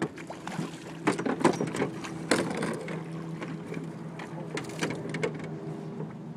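Water splashing as a hooked redfish thrashes at the surface beside the boat: a cluster of sharp splashes about a second in, lasting a second and a half, and a few more near the end. A steady low hum runs underneath.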